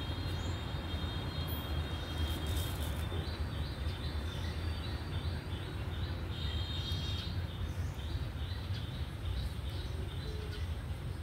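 A small bird chirping, a run of short repeated chirps, a couple or so a second, starting about three seconds in, over a steady low outdoor rumble.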